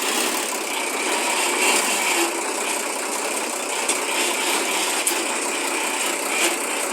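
Compactor truck's engine running steadily, just started after repair, with a few faint clicks over the running.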